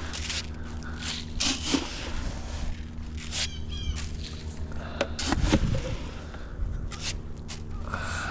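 Chickens calling and scratching about, with one quick run of chirping notes about three and a half seconds in, over a steady low hum.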